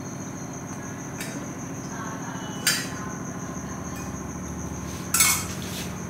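Steel spoon clinking against a small steel cup as cooking oil is spooned into a steel pan: three clinks, the loudest about two and a half seconds in, over a steady hum.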